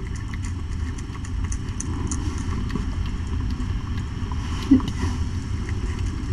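A nursing mother cat purring steadily in a low, rough rumble, with faint wet clicks of her eating soft food from a bowl. There is one short low bump about three-quarters of the way through.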